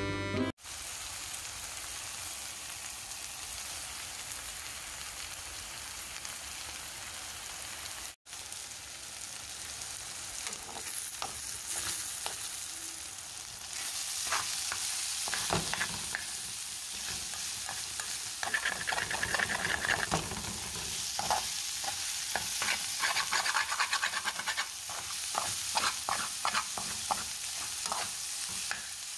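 A fish and onion fry sizzling in a steel pan on a low flame, with a metal spatula stirring and scraping against the pan. The scraping strokes come thicker from about halfway on.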